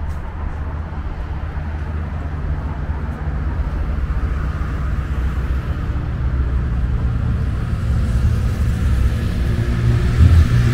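A vehicle engine running steadily with a low hum and rumble, growing a little louder near the end.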